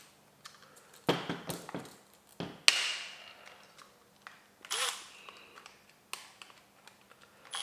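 Scattered light clicks and knocks of small parts and a tool being handled on a plastic blaster gearbox between screw removals, a few separate taps spread over several seconds.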